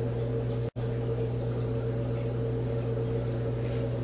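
Steady low electrical hum with a few faint higher overtones and a light hiss, cutting out for an instant about a second in.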